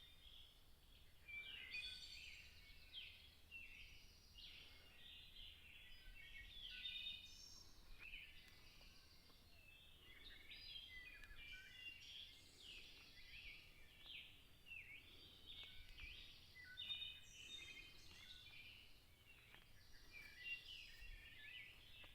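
A dawn chorus of songbirds, faint: many birds singing over one another in a dense, unbroken stream of short chirps, whistles and trills.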